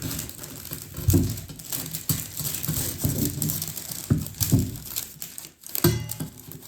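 Parchment paper crinkling and rustling as it is handled, with a few sharper knocks and rustles at irregular moments.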